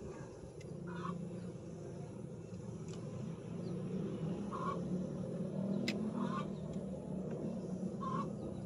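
Four short bird calls, a second or more apart, over a steady low hum that swells in the middle; a single sharp click near two-thirds of the way through.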